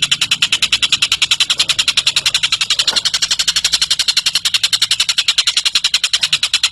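Tengek cililin bird song, a rapid, even trill of sharp high notes at about a dozen a second.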